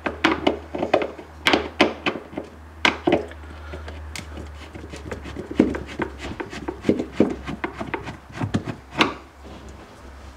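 A screwdriver turning out a screw from the plastic lower fan cover inside a fridge, with the screwdriver and hand rubbing and knocking against the panel. It is a run of irregular clicks, knocks and scraping.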